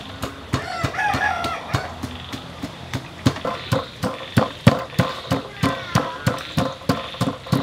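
A chicken calls about a second in. From about three seconds in, a stone pestle pounds chili and garlic in a stone mortar: quick, even thuds, about three or four a second.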